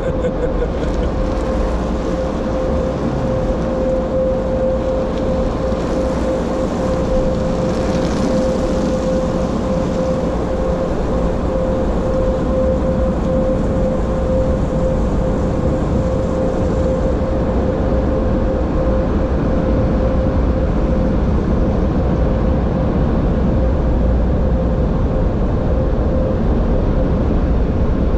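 A car's proximity-sensor warning holding one steady, unbroken tone inside the cabin, set off by the car-wash machinery close around it. Under it is the constant rush of car-wash water sprays and air-dryer blowers, which eases somewhat after the first two-thirds.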